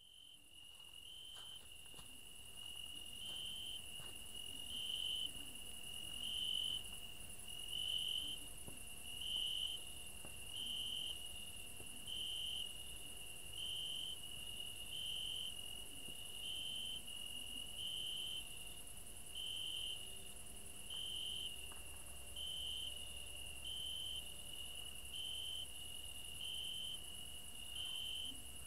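Crickets chirping: a steady high trill with a louder pulse repeating about every second and a half, fading in over the first few seconds.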